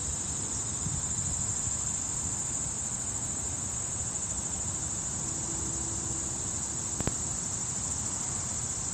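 Steady, high-pitched trilling chorus of insects, with a low rumble underneath and a single sharp click about seven seconds in.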